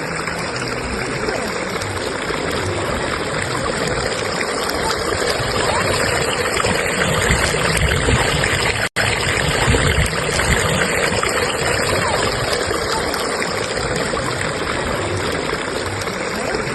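Stream current rushing and splashing in a steady wash of water noise, with a momentary cut-out about halfway through.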